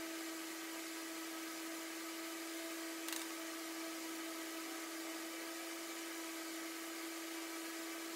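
Steady room hum: one constant low tone over an even hiss, with a single faint click about three seconds in.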